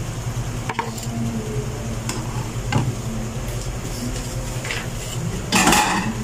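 Metal spatula and fork stirring meatballs in a wok of boiling broth: a few light clinks against the pan, then a louder scrape near the end, over a steady low hum.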